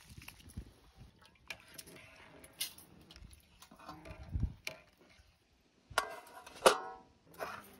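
Cooking sounds at a large aluminium pot: soaked rice splashing into boiling water and a metal slotted spoon knocking and stirring in the pot. Near the end the aluminium lid clanks, the loudest sound.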